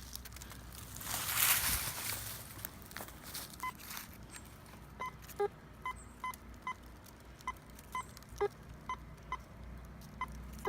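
Rustling for the first few seconds, then a Teknetics Patriot metal detector sounds about a dozen short beeps as its coil sweeps over a buried target. Most beeps are a mid tone, and a few drop to a lower tone, so the signal bounces without reading as iron. It is a mid-tone hit on a pull tab about six inches down.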